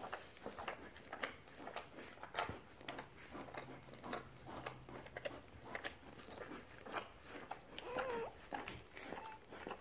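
Newborn puppies suckling at their mother's teats: a run of irregular wet clicks and smacks. About eight seconds in comes a short wavering squeak from a puppy.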